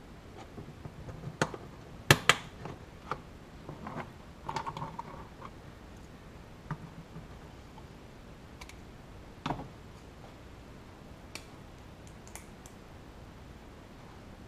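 Hard plastic clicks and knocks from the side-by-side's plastic body panel and push-type fasteners being handled and pressed into place. Two sharp clicks about two seconds in are the loudest, followed by a short rattle, a single knock, and a few light ticks.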